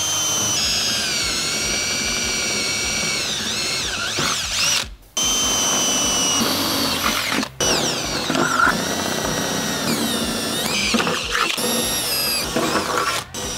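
Cordless 20V DeWalt drill running a 15/64-inch bit through aluminum corner armor and into the Jeep's body sheet metal, drilling a row of holes. The motor's whine rises and falls in pitch with trigger pressure, with brief stops about five and seven and a half seconds in between holes.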